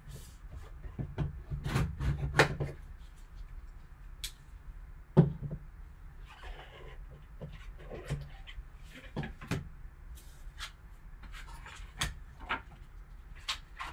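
Gloved hands handling and opening a cardboard trading-card box: scattered taps, scrapes and light knocks of the box and lid, with one sharper knock about five seconds in.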